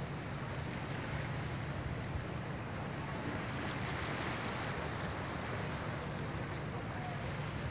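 Steady seaside ambience: a low, even rumble with a soft hiss over calm sea, with no distinct events.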